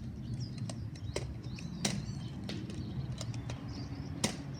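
Scattered sharp clicks and knocks, roughly one every half second to second, the loudest about four seconds in, over a steady low rumble of movement.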